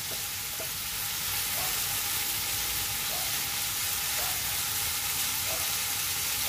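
Chicken, tomato and onion sizzling steadily in a non-stick frying pan over a gas flame, with light scrapes of a wooden spatula stirring the food about once a second.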